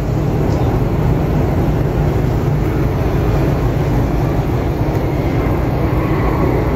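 Steady, loud low rumble of a running engine with a hum underneath.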